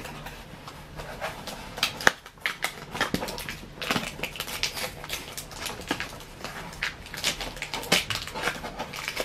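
Cardboard and plastic packaging of a toy blaster box being handled as parts are taken out: an irregular run of crinkles, scrapes and clicks.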